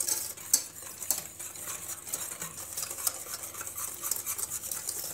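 Metal whisk beating liquid in a stainless steel pot: quick, irregular clinks and scrapes of the wires against the pot's sides and bottom. It is whisking chocolate sauce mix into cold milk so that it does not form lumps.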